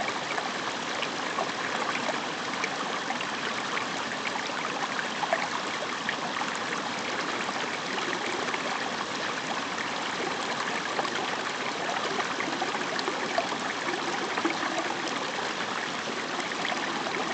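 A small stream running and trickling steadily, with a busy even splashing and gurgling.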